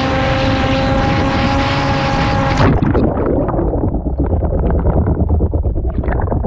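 Onboard-camera sound of a Skywalker FPV foam plane's electric motor and propeller holding a steady whine under heavy wind rush. About two and a half seconds in, it cuts off with a splash as the plane crashes into the lake. This is followed by muffled gurgling and sloshing of water around the submerged camera.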